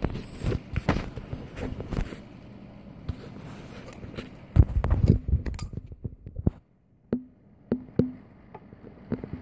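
Beyblade tops and launchers being handled between rounds: a series of small hard plastic-and-metal clicks and clatters, with a dense rattling burst near the middle and a few single sharp clicks near the end.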